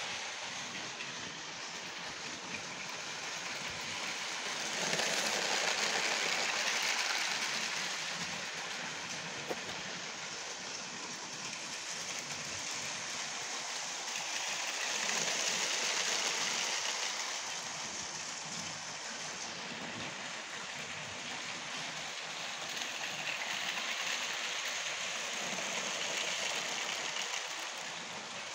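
Motorized Lego trains running on plastic track: a steady rushing rattle of small wheels that swells louder three times as a train passes close.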